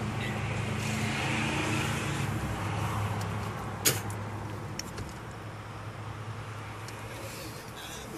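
Car engine idling with a steady low hum, heard from inside the cabin, easing a little quieter about three seconds in. A sharp click about four seconds in and a few fainter clicks later.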